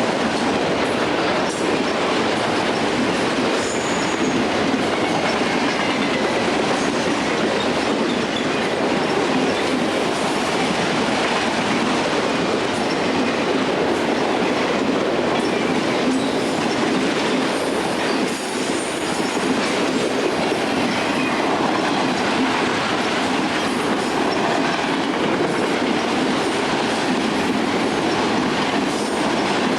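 Railroad cars of a passing train rolling by, wheels clicking steadily over the rail joints, with brief faint wheel squeals.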